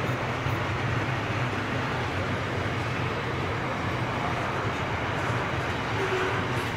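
Container flat wagons of a freight train rolling past at steady speed: a continuous rumble of steel wheels on the rails.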